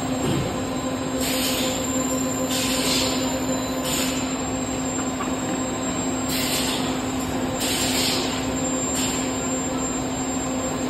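Blow moulding machine running: a steady machine hum with about five short hisses of air, each under a second, spaced a second or two apart.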